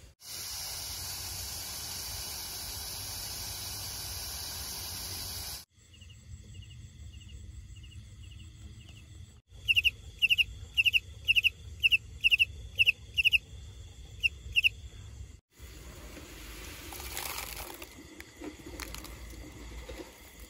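Outdoor night ambience across several cuts. It opens with a steady high drone, then goes quieter. Next come about a dozen loud, sharp, high chirps, a little over two a second, from a small creature, and last a stretch of low rustling.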